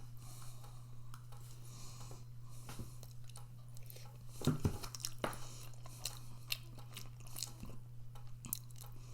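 A person chewing a mouthful of food with small wet smacks and clicks, louder about halfway through, over a steady low hum.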